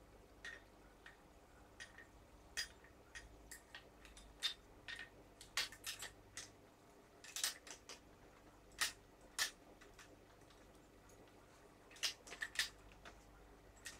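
Irregular sharp clicks and light knocks of small rifle parts and tools being handled while a WE M4 gas-blowback airsoft rifle is assembled, in scattered clusters with a short flurry near the end.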